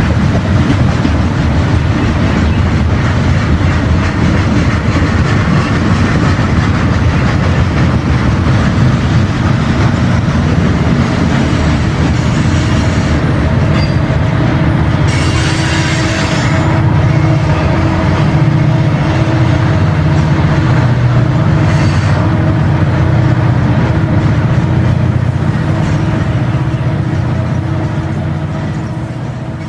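Diesel freight train sound running steadily: low engine rumble with rolling wheel clatter and a brief hiss about halfway through, fading out near the end.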